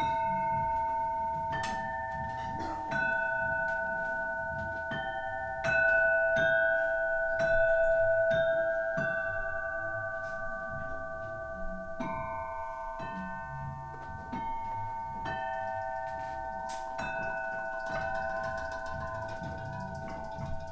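Tuned, hammered metal bowls struck with soft mallets, playing a slow melody. The notes ring on and overlap, with a new note about every second.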